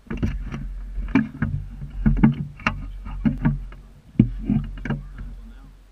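Handling noise from a camera mounted on a saxophone as the instrument is moved around: a dozen or so irregular sharp knocks and bumps over a low rumble, fading away near the end.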